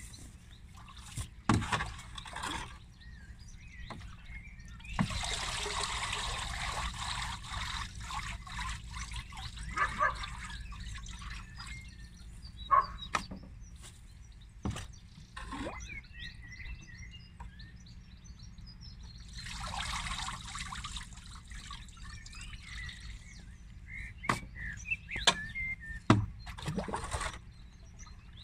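A rake being stirred through a bathtub of steeping liquid nettle fertiliser: the liquid sloshes and trickles, most strongly in two longer spells, with sharp knocks scattered throughout. Birds chirp faintly.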